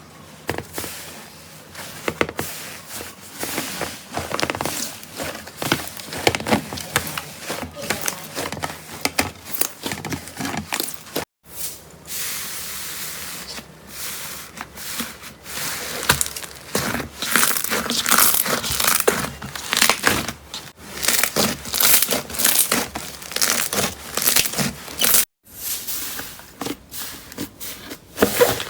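Slime being pressed, squeezed and poked by hand, giving dense runs of rapid clicks, pops and crinkling. The sound cuts out abruptly twice, about 11 and 25 seconds in.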